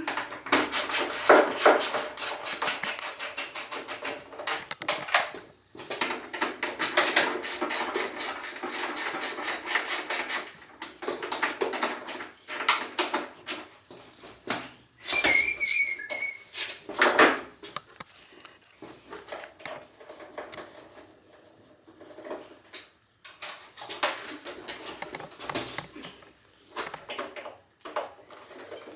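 Hand work on an ATV's exhaust heat shield: bursts of rapid metallic clicking and clatter with scattered knocks, and a brief whistle-like tone about halfway through.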